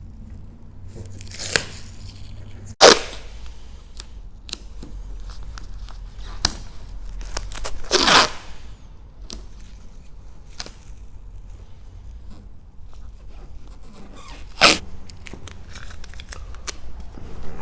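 Masking tape being pulled off the roll and torn: three sharp rips, about 3, 8 and 15 seconds in, the middle one the longest, with faint crinkles and taps between as the tape is pressed down.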